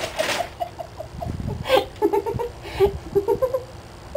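A person giggling: quick, high-pitched laughter in short repeated syllables, with a few brief breathy gasps between.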